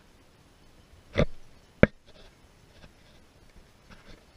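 Two sharp knocks close to the microphone, about two-thirds of a second apart, from the shotgun and gloved hand being handled right at the camera. The first has a short ring-out and the second is a brief, louder click.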